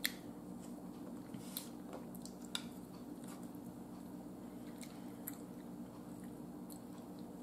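Quiet chewing of a mouthful of food, with a few soft, sharp clicks of a metal fork against a plate, the sharpest right at the start, over a faint steady hum.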